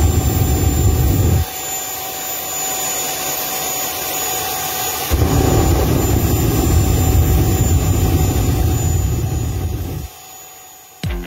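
Jet engine of a jet-powered buggy running: a steady rushing roar with a thin whine. It swells to a much louder, deep roar twice, briefly at the start and again for about five seconds from midway, then drops back near the end.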